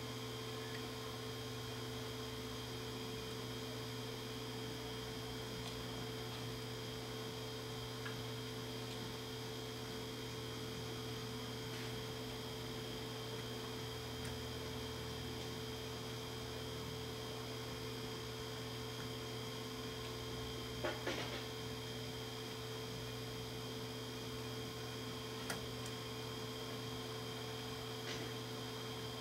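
Steady electrical mains hum with a thin, higher whine over it, from the powered bench electronics. A few light clicks come in the last third.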